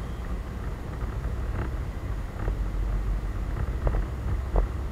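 Yamaha DragStar Classic V-twin motorcycle riding slowly: a steady low engine rumble mixed with wind on the microphone, with a few brief knocks along the way.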